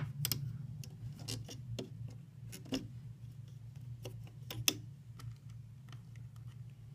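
Small irregular clicks and taps of rubber bands being stretched onto the plastic pegs of a Rainbow Loom, with a sharper click about two-thirds through, over a steady low hum.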